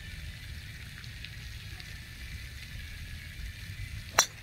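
Driver striking a golf ball off the tee: one sharp crack near the end of a solidly struck drive. Under it, a steady low rumble and hiss.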